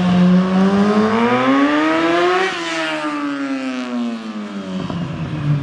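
Motorcycle engine accelerating, its pitch rising steadily for about two and a half seconds, then falling away over the next three.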